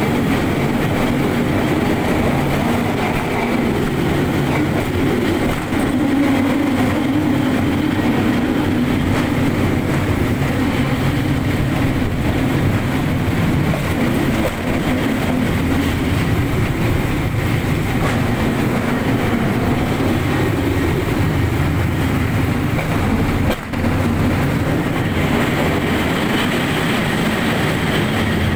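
Small open-sided rail car running steadily along the track through a tunnel: a continuous loud rumble of its wheels on the rails.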